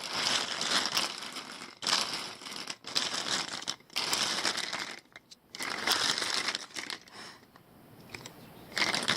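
Plastic Bic lighters being handled and shuffled by hand, making crinkling, rustling noise in a run of bursts about a second long with short pauses between.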